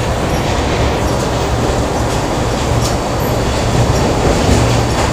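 Factory machinery ambience: a loud, steady low rumble and mechanical clatter, with a few faint clicks.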